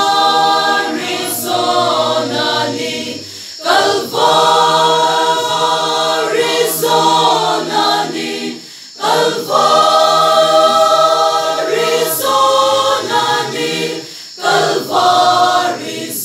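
Mixed choir of women and men singing unaccompanied, in sustained phrases of about five seconds with short breaks for breath between them.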